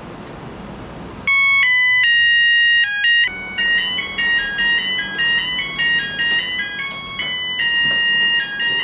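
A simple synthesized melody of clear, pure electronic tones. It starts about a second in with a few loud held notes, then moves on to a quieter run of short stepping notes.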